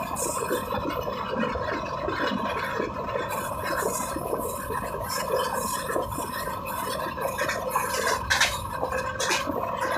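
Passenger train coach running along the track, heard at its open door: steady rattle and rumble of the wheels on the rails with wind rush and a constant whine, and a sharp click about eight seconds in.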